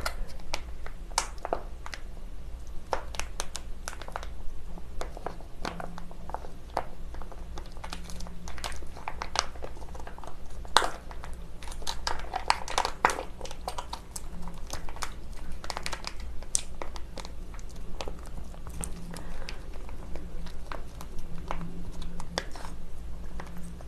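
Plastic spouted sauce pouch crinkling and crackling in irregular clicks as it is squeezed and wrung out by hand to empty thick spicy sauce from it.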